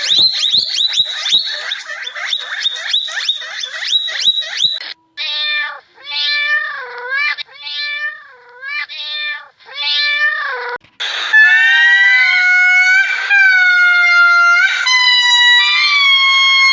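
Domestic cat calls: first a rapid run of short, high calls, then about six separate meows with short pauses between them, then longer, drawn-out meows from about eleven seconds in.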